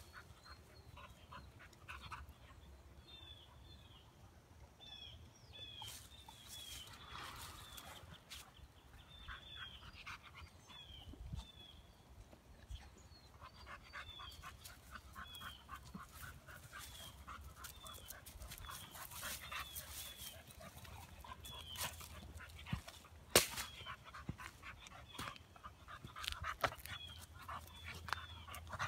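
Dogs playing rough together, panting, with scuffling through dry pine straw and leaves. A short high chirp repeats about once a second throughout, and there is a single sharp click about two-thirds of the way in.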